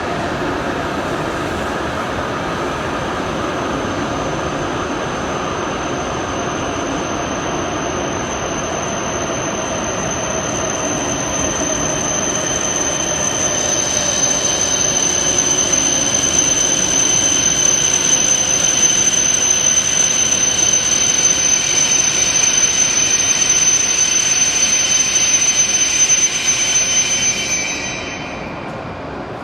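Kagayaki Shinkansen train running through the station at low speed: a steady rushing noise with a high, even whine. The sound grows louder with extra whining tones in the second half, then falls away sharply near the end.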